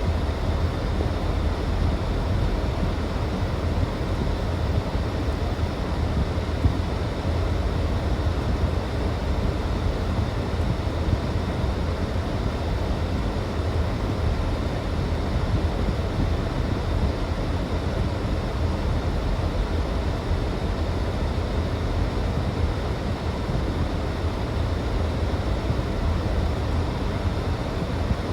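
Steady rush of interstate highway traffic passing below, an even, continuous noise with no single vehicle standing out.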